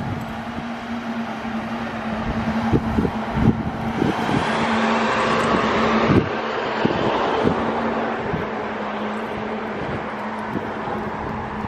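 A car passing on the road, its noise swelling to a peak about six seconds in and then fading. Under it are wind buffeting the microphone and a steady low hum.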